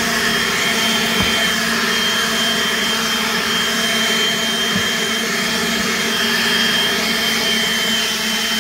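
Leaf blower running steadily at full power: a constant rush of air with a steady whine, leaves being blown across grass.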